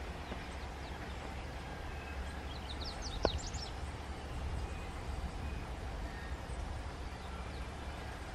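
Low, steady rumble of a diesel locomotive approaching slowly at the head of a loaded freight train. About three seconds in, a quick run of high bird chirps and a single sharp click.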